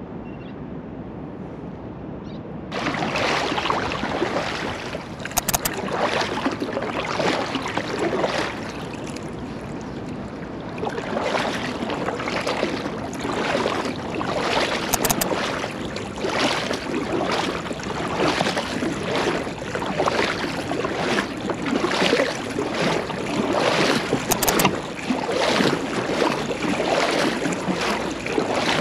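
Seawater splashing and rushing around the bow of a paddled fishing kayak and the fish-finder transducer mounted there. It starts up about three seconds in after a quieter stretch, then goes on in uneven surges.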